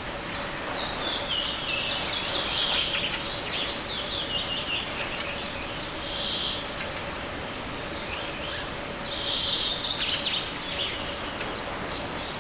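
Songbirds singing in short repeated phrases, one of them falling in pitch about a second in, over the steady rush of a small forest river.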